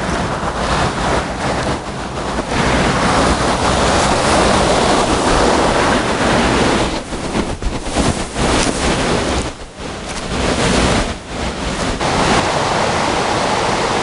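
Rushing creek water below a waterfall, a steady loud hiss, with wind buffeting the microphone.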